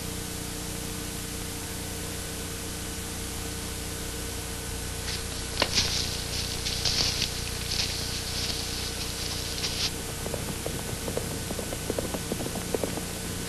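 Steady hiss and faint hum of an old TV soundtrack. Irregular rustling scrapes come in about halfway through, and scattered soft knocks follow near the end.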